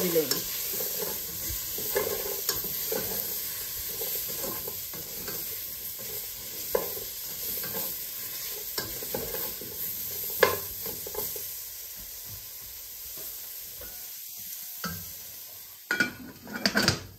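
Onion and garlic frying in a little oil in a pan, sizzling while a spoon stirs and scrapes, with scattered taps of the spoon against the pan. The sizzle dies down over the last few seconds, and a few louder clatters come near the end.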